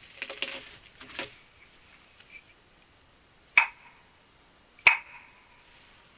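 Two sharp knocks about a second and a half apart, the loudest sounds here, each followed by a short ringing tail. A few brief rough sounds come before them, in the first second or so.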